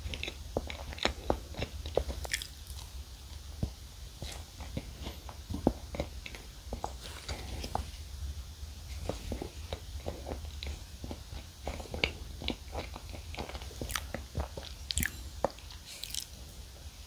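Close-up chewing of a Choco Pie, soft chocolate-coated cake with a marshmallow filling: a steady run of wet, sticky mouth clicks and smacks.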